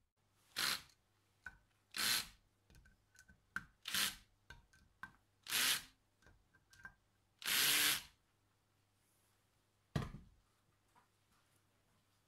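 Cordless drill run in five short bursts, about one every one and a half to two seconds, the last one longest, as the bit spots hole positions through a steel linear rail into an aluminium plate. Light clicks come between the bursts, and there is a single sharp knock near the end.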